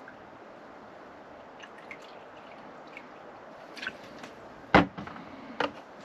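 Water poured from a bottle into the small water tank of an Outin Nano portable espresso machine, a faint steady trickle. Near the end come a few light clicks and two sharp knocks, the first the loudest, as the machine's parts are handled and fitted together.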